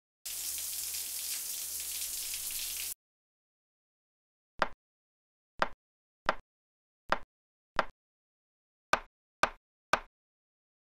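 A steady hiss for about two and a half seconds, then eight sharp knife chops on a plastic cutting board, a half-second to a second apart.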